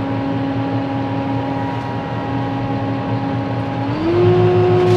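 Kubota M6-141 tractor's diesel engine running steadily, then about four seconds in its pitch steps up and it gets louder as the tractor moves off in low range.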